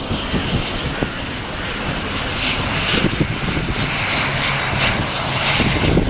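ATR 72-500 turboprop's engines running in a steady drone with a strong high whine, swelling slightly toward the end.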